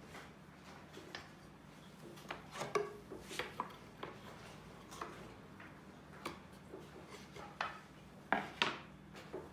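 Irregular light knocks, clicks and rubbing of wooden pieces being handled, a few louder knocks about a third of the way in and near the end, over a faint steady hum.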